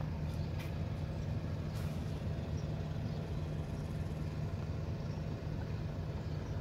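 Steady low mechanical hum over an even background rumble, with a few faint clicks in the first two seconds.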